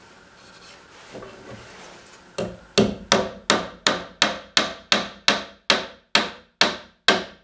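Claw hammer driving a nail into the wooden side of a nesting box: a steady run of about fourteen blows, roughly three a second, starting a little over two seconds in.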